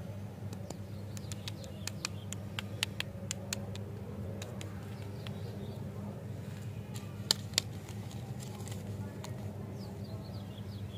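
Light clicks and taps of wrapped lollipops being handled and set down: a quick run of them a couple of seconds in and two louder clicks about seven seconds in, over a steady low hum. Birds chirp faintly near the end.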